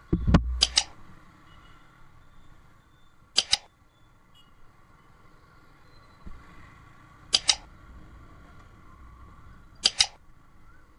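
Computer mouse click sound effects from a like-and-subscribe button animation: four quick double clicks a few seconds apart, opened by a short low thud. A faint steady hum runs underneath.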